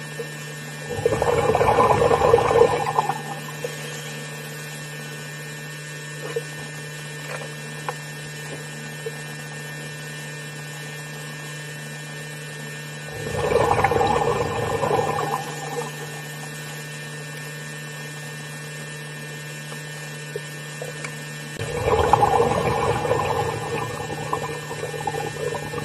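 Underwater camera audio: a steady electrical hum, with three rushing water noises two to three seconds long, one about a second in, one around the middle and one near the end.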